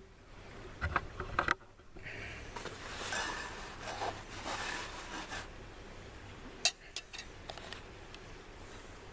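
Camping gear being handled and shifted around: rustling and scraping, with a few sharp knocks near the start and about two thirds of the way in.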